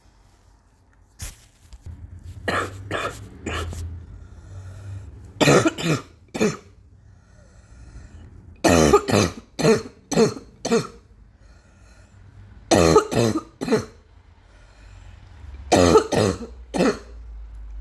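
A person coughing in repeated fits of about three harsh coughs each, one fit running to about five, with short pauses between: a persistent cough that keeps coming back.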